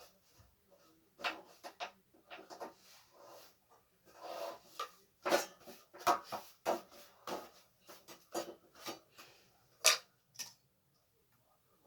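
Irregular clicks, knocks and short clatters of metal gas stove parts and tools being handled and fitted during reassembly, with one sharp knock near the end.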